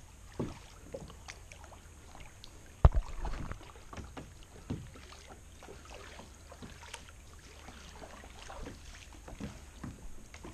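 Kayak paddling on calm water: scattered paddle splashes and light knocks on the plastic hull. A sharp, much louder knock comes about three seconds in.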